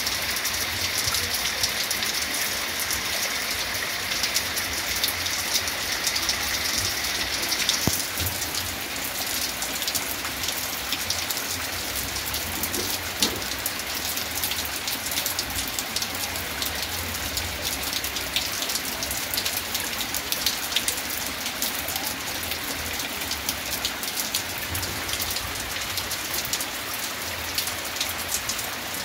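Heavy rain falling steadily, with many individual drop ticks heard through the hiss. A higher hiss that is there at the start drops away about eight seconds in.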